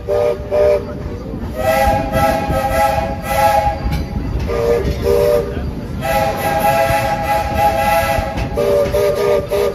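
Steam locomotive's chime whistle sounding a signal pattern: pairs of short toots alternating with two long blasts of about two seconds each, over the steady hiss and rumble of the engine.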